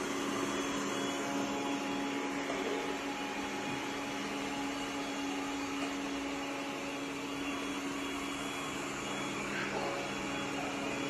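Yeedi vac x robot vacuum running, its suction motor giving a steady hum with a constant low tone over an even rushing noise.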